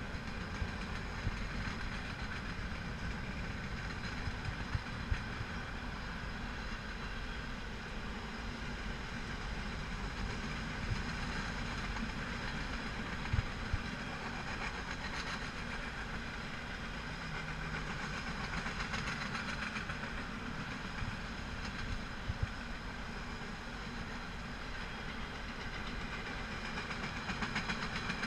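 A CP Rail freight train's cars rolling past on steel rails: a steady rumble with scattered sharp clanks and knocks.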